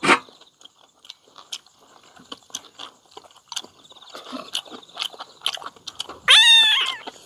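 Soft clicks and chewing sounds of people eating. About six seconds in, a cat meows once, loud and high, for just under a second.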